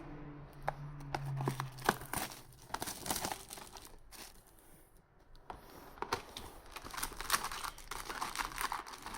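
Plastic wrapping and foil booster packs crinkling and tearing as a card box is opened by hand, with small clicks and rustles. There is a quieter lull around the middle, and busier crinkling toward the end.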